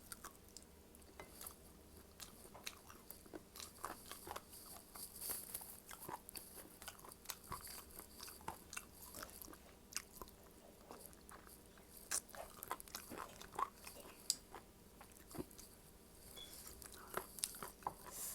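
Close-up eating sounds: irregular small crunches, bites and wet chewing clicks.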